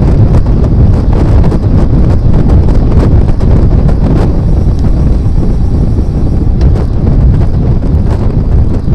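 Loud, steady wind buffeting on the microphone of a rear-facing Fly6 camera-light mounted on a road bike moving at speed.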